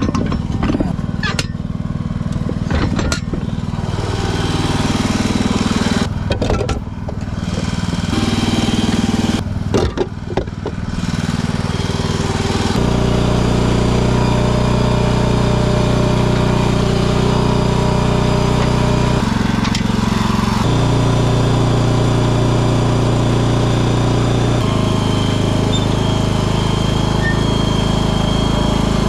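An engine running, with sharp clicks and knocks over the first ten seconds. About thirteen seconds in it gets louder and its pitch steps up, then its speed shifts a few more times.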